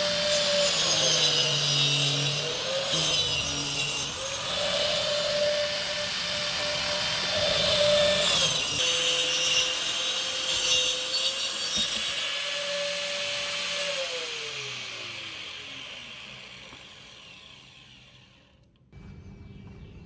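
Angle grinder running as a sliding saw, its steady motor whine dipping as the disc bites through the workpiece in two long cuts with a harsh hiss. About fourteen seconds in the grinder is switched off and its whine falls away as the disc spins down.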